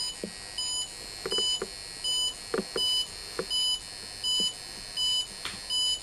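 RF meter's alarm beeping at a steady pace, about four high-pitched beeps every three seconds, as it picks up the constant radio-frequency emission of a powered-on DECT cordless phone base station. A few faint clicks fall between the beeps.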